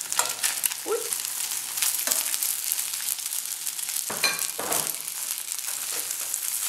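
Fried egg, smoked sausage and bacon sizzling in oil in a pot as cooked rice is tipped in on top. A spatula stirring it gives a few scrapes and knocks, the strongest about four seconds in.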